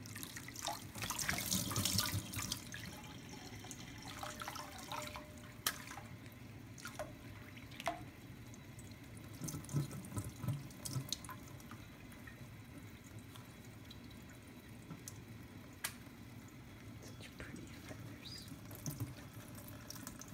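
Thin stream of water running from a kitchen faucet onto a ceramic plate, with louder splashing for a couple of seconds about a second in as a wet Quaker parrot bathes under it. Scattered sharp drips and taps through the rest.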